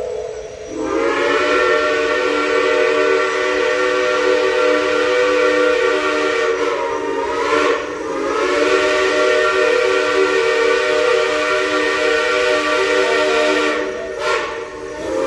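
Shay geared steam locomotive's chime whistle blowing several notes at once in long blasts. The sound dips briefly about halfway through and breaks off just before the end.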